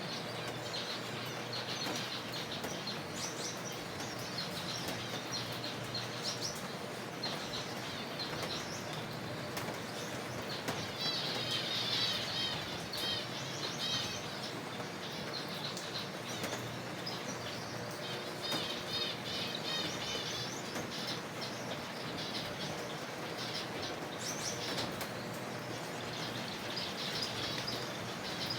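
A colony of zebra finches calling, many short high chirps overlapping, with denser runs of rapid chirping about a third and two thirds of the way through.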